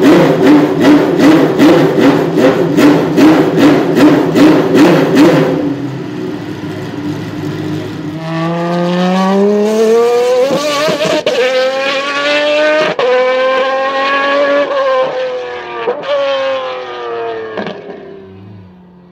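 Maserati MC12 Corsa's V12 engine revved at a standstill in a rapid string of blips, about three a second. It then accelerates hard, rising in pitch and breaking at several quick gear changes, and fades as the car pulls away.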